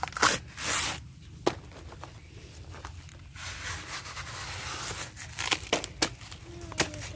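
Fibrous outer leaf sheaths being torn off a freshly cut banana pseudostem: a sharp snap, then a loud rasping tear about half a second in, with a softer tearing stretch midway and a few sharp cracks near the end.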